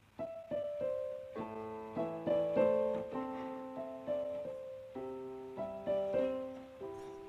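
Background music on a keyboard, starting just after the beginning: a slow melody over chords, each note struck and left to fade.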